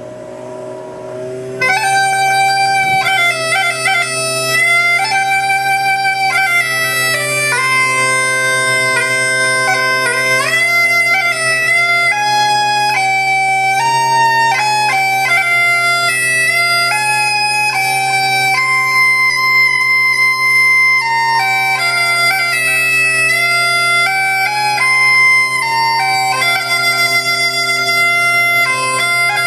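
Aragonese gaita de boto bagpipe played solo: the drone sounds steadily, and about two seconds in the chanter comes in loudly and plays a melody over it.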